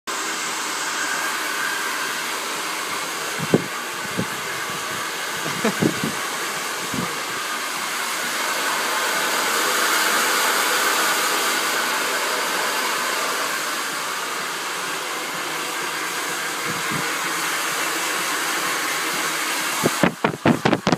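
Handheld hair dryer blowing steadily, a little louder around the middle, with a few light knocks in the first seven seconds. It cuts off suddenly about a second before the end, followed by a quick run of clicks.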